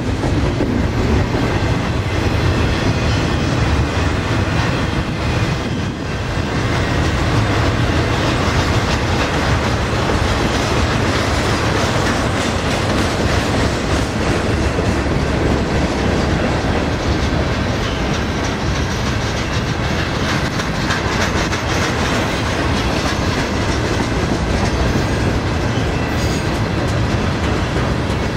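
Loaded double-stack container well cars of a freight train rolling past, a steady rumble of steel wheels on rail with a continuous run of clicks over the rail joints.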